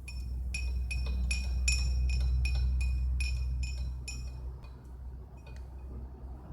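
Rapid, light clinking of a small ringing glass or metal object, about three to four strikes a second, each ringing at the same high pitch, thinning out and stopping after about five seconds. A steady low rumble runs underneath.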